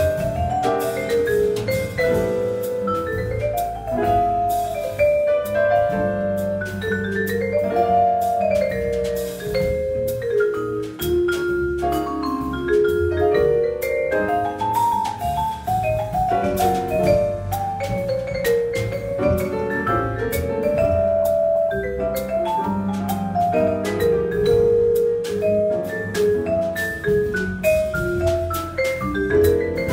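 Bergerault vibraphone played with mallets in a jazz solo: quick runs of ringing notes that climb and fall, over double bass and drum kit.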